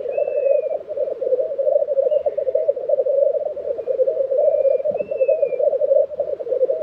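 Male black grouse rolling in chorus at a lek: a continuous, rapidly pulsing bubbling song. Faint high thin whistles come twice, at the start and about five seconds in.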